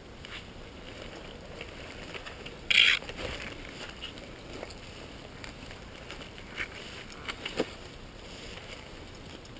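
Boots squelching and sloshing through mud and water, with a few short wet noises and one loud sharp noise about three seconds in.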